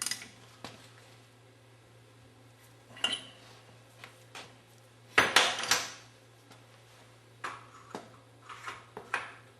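Metal hand tools and pump parts being handled and set down: scattered metal clinks and clanks, the loudest cluster about five seconds in and lighter taps near the end, over a faint steady low hum.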